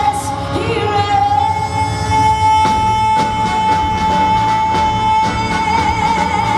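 Female singer belting a long, held high note with vibrato into a microphone, the big final note of a show tune, over a live band whose drums and cymbals crash in about two and a half seconds in.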